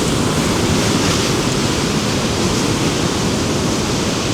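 Heavy surf from a choppy sea crashing against rocks: a loud, continuous rush of breaking waves that swells slightly about a second in.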